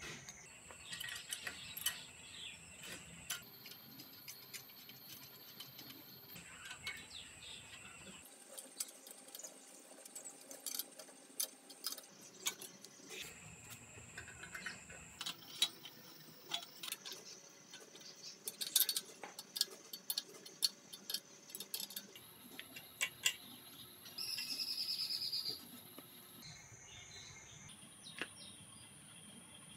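Scattered light clicks and clinks of metal bicycle parts being handled and fitted: a quill stem going into the head tube and a handlebar sliding into the stem clamp. About 24 seconds in, a high chirping sound lasts for about a second and a half.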